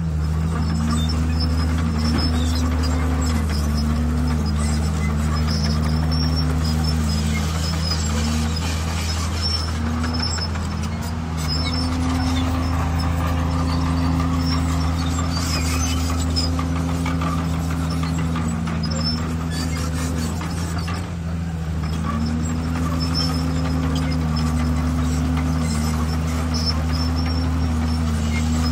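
Diesel engine of a crawler bulldozer running steadily under changing load as it pushes stone. A higher engine tone over the steady low drone repeatedly dips and recovers, held for several seconds at a time in places, and the engine sound sags briefly about 21 s in.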